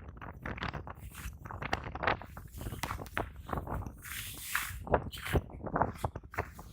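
Footsteps on snow at an uneven pace, with clothing rustling, in a strong wind of 40+ mph. A louder hissing gust comes about four seconds in.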